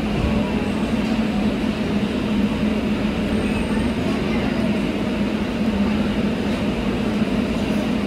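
Metro train running, a steady rumble with a low hum.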